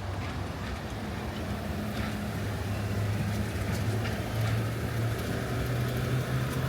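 A motor or engine humming steadily, its low tone slowly rising in pitch, over outdoor background noise.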